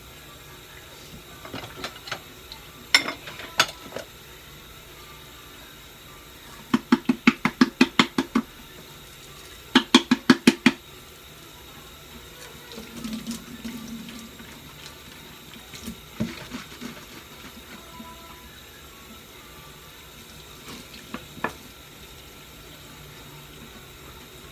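Kitchen faucet running into a stainless steel sink during hand dishwashing, with two quick runs of rhythmic scrubbing strokes, about six a second, a few seconds in and again around ten seconds in. Scattered soft knocks and clinks of dishes being handled.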